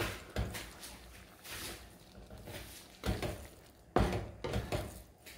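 Spatula stirring beef and tomato in sauce in a skillet: irregular knocks and scrapes against the pan, several in a few seconds, the sharpest about four seconds in.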